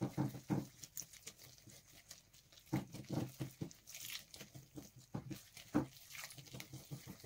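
Wire whisk beating thick crêpe batter of rice flour and eggs in a bowl: irregular scraping and tapping strokes against the bowl as the liquid is worked in a little at a time to keep the batter from going lumpy.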